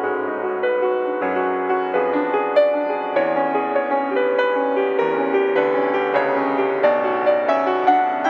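Slow instrumental keyboard music: held chords with a melody moving above them, the notes changing about once a second.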